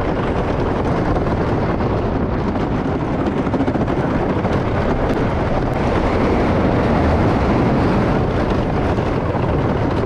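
Steady loud rush of wind on the microphone and the rumble of a wooden roller coaster train running on its track, heard from aboard the ride.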